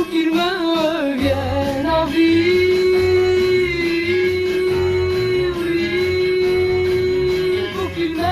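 A 1960s French pop song: a female singer slides through a few wavering notes, then holds one long note for about five and a half seconds over a steady band accompaniment with bass.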